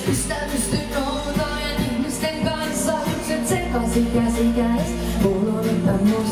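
Pop song with a female voice singing over a steady beat and bass.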